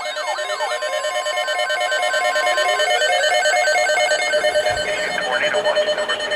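Electronic alert tones from a weather alert radio sounding for a tornado watch: a rapidly pulsing beep, with a steady higher tone over it that stops about three seconds in.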